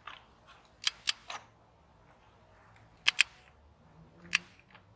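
Click-type torque wrench tightening a knock sensor: a handful of sharp metallic clicks, two of them in quick pairs, about a second in and again about three seconds in. The click is the wrench signalling that the set torque has been reached.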